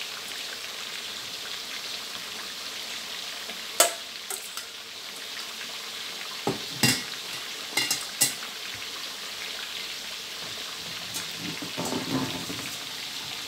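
Fermented mrigal fish (pla som nuanchan) deep-frying in hot oil in a steel wok: a steady sizzle with sharp oil pops now and then, several of them between about four and eight seconds in.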